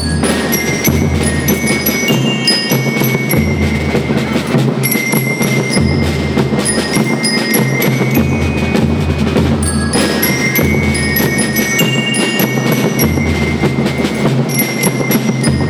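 School rhythm band playing a march: bell lyres ring out a bright metallic melody over steady snare drums and a bass drum.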